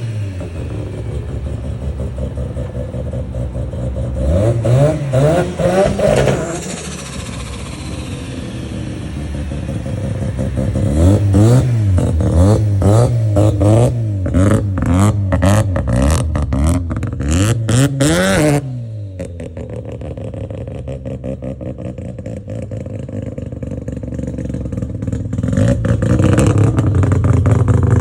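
Mazda RX-7's heavily modified rotary engine, about 1000 hp, being free-revved in a string of quick blips over a choppy, uneven idle. The revs cut off sharply after the biggest blip, it settles back to idle, then the revs climb again near the end.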